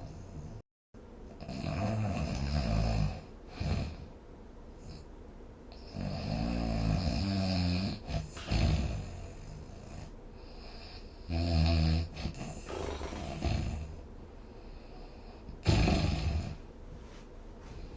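A sleeping person snoring: about four loud snores of one to two seconds each with a buzzing pitched tone, some followed by a shorter second snore, with quieter breathing in between.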